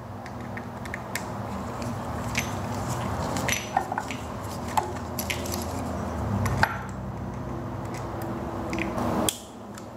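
Plastic pool pump impeller being turned by hand onto the motor shaft: scattered light clicks and scraping over a steady mechanical hum, which cuts off sharply near the end.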